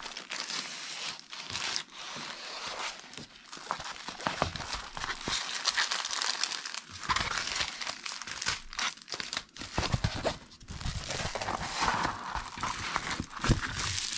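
Clear plastic packaging crinkling and crackling as hands unwrap a rolled diamond painting canvas and unroll it, the plastic film on the canvas rustling as it is flattened. The sound is a continuous run of irregular crackles.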